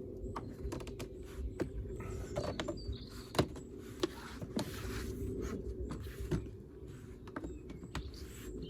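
Scattered clicks and knocks of plastic trim being handled and pressed into place around the wiper area of a car, over a steady low hum.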